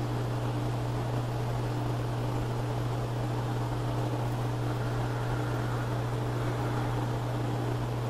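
Steady low hum under a constant even hiss, unchanging throughout.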